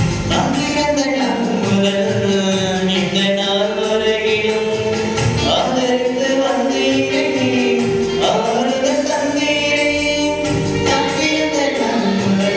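Devotional hymn: voices sing long held notes over instrumental accompaniment, with a light, steady percussion beat.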